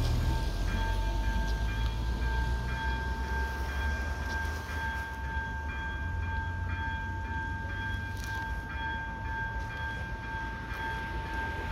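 Train running over a level crossing, a low rumble that is loudest at the start and slowly eases off, with two steady high tones held over it.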